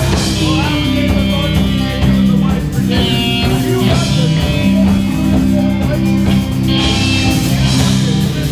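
A rock band playing live and loud: electric guitar, bass and a drum kit.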